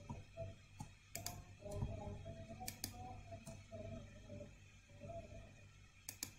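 Faint clicks of a computer mouse, a handful scattered through, with two quick clicks close together near the end.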